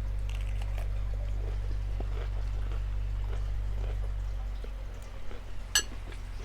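Close-up chewing of crunchy salad, faint crackly crunches and small mouth clicks, over a steady low hum that drops away about five seconds in. One sharp click comes near the end.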